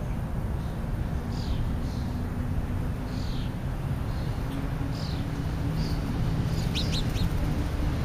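Small songbird chirping in short, high, falling notes about once a second, with a quick pair of sharper notes near the end, over a steady low rumble.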